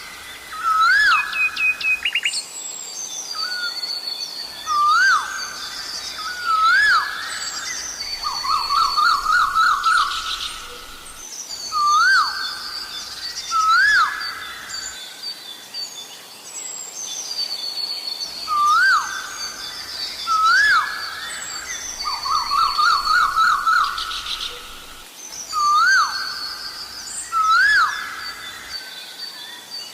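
Asian koel calling over and over: loud, rising 'ko-el' notes, mostly in pairs every few seconds. Twice it breaks into a fast run of rising notes. Higher, fainter songs of other birds carry on behind it.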